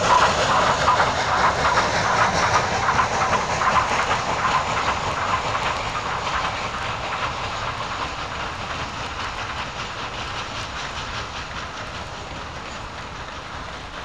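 Steam train running past on the rails: a dense rattle of wheels and cars with quick clicking and steam hiss, fading steadily as it draws away.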